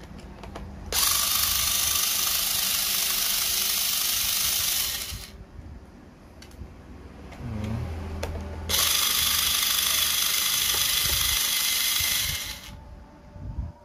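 FISCH 3.6 V cordless electric screwdriver running in two spells of about four seconds each, backing out small screws from a laptop's bottom cover.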